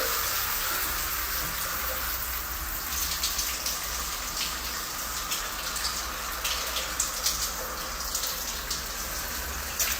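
Steady splashing water with scattered light drips.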